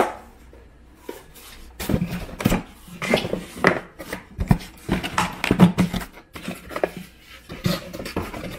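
Cardboard packaging and plastic vacuum parts being handled and put back into their boxes. There are irregular knocks, taps and rustles, starting about two seconds in.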